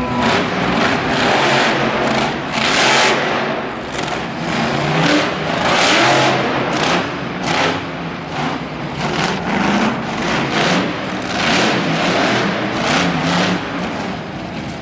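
El Toro Loco monster truck's supercharged V8 engine revving hard, surging up and falling back again and again as the truck is driven around the arena and launched off a ramp.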